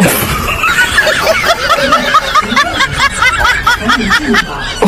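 Laughter: a rapid, high-pitched run of short snickering laughs, about six a second.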